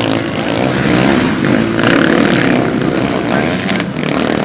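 Several off-road motorcycles racing past close by on sand, their engines revving up and down as they accelerate and shift.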